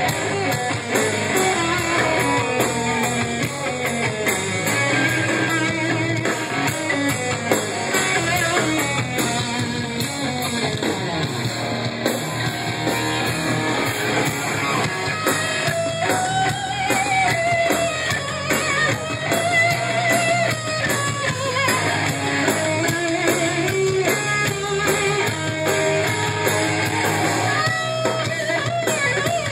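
Live heavy metal band playing distorted electric guitars over a drum kit, with a wavering lead melody on top, heard through a phone microphone in the crowd.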